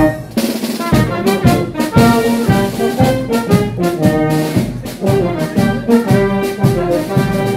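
Small marching band of clarinet, saxophone, trumpet and low brass playing a lively tune with a steady beat.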